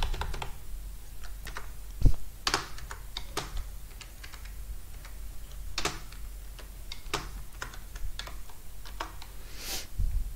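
Computer keyboard being typed on in slow, scattered single keystrokes, with irregular gaps between them. One keystroke about two seconds in is heavier than the rest.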